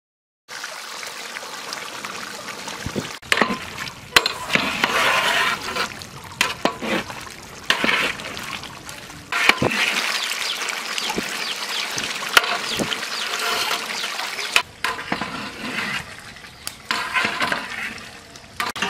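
A metal ladle stirring a large pot of steaming goat curry: wet, sloshing stirring noise, with the ladle knocking sharply against the metal pot several times.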